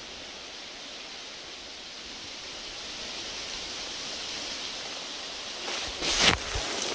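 A steady outdoor hiss. About six seconds in, footsteps start crunching through dry fallen leaves and brush.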